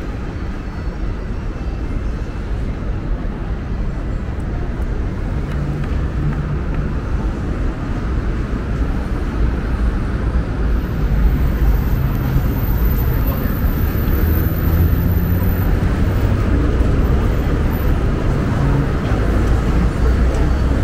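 City street traffic noise at a busy intersection: a steady rumble of passing cars, a little louder from about halfway through.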